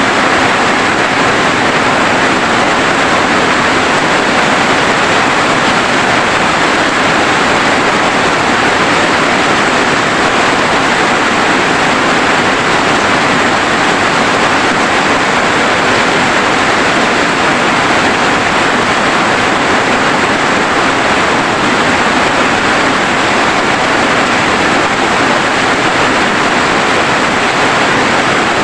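Rain falling steadily: a loud, even hiss with no separate drops standing out.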